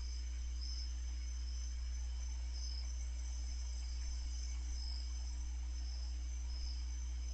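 Crickets chirping steadily in high, thin tones over a constant low electrical-sounding hum.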